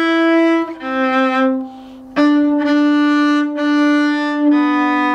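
Solo cello playing a slow melody on the A string, each note bowed separately with no slurs: the end of a held E, then a C, and after a short break a D played three times (the first one short) and a lower B.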